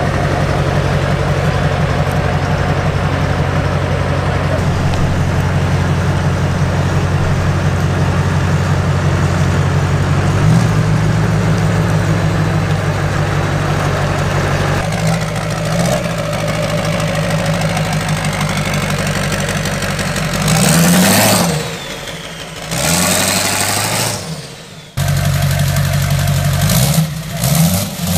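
Truck engine idling steadily with a deep, even note, then revved up and down several times in the last third, with an abrupt cut partway through.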